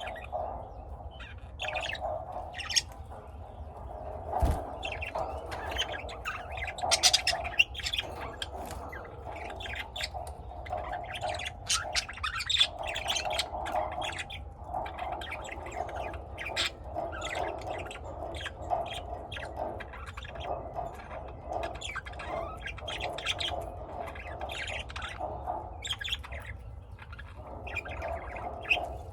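Pet lovebirds chirping and squawking without pause, many short shrill calls overlapping. A single low bump sounds about four and a half seconds in.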